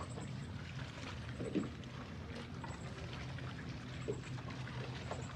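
Water splashing and trickling, with a steady low hum underneath.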